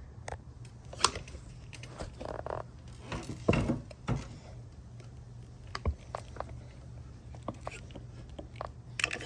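Scattered clicks and knocks of metal parts and hand tools being handled while a knob is pressed onto a window crank handle, with a brief rustle about three and a half seconds in, over a low steady hum.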